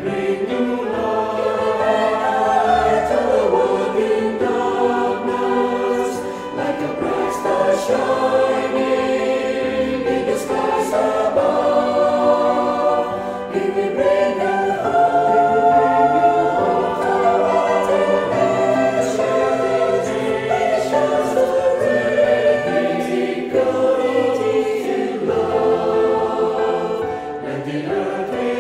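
A church choir singing in several parts, in long sustained phrases with brief breaks between them.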